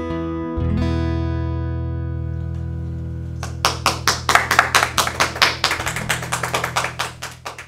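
Closing chord of an acoustic guitar ringing and slowly fading. About three and a half seconds in, a few people start clapping, and the clapping tapers off near the end.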